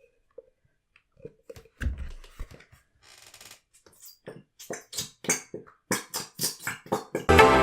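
An Elmer's glue bottle being squeezed out into a mixing bowl: a run of short squelching, sputtering splurts that come faster and louder as it empties. Electronic music starts just before the end.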